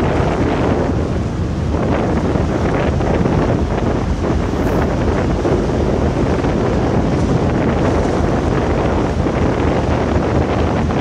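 Wind buffeting the microphone: a steady, loud rush with a heavy low rumble and no distinct events.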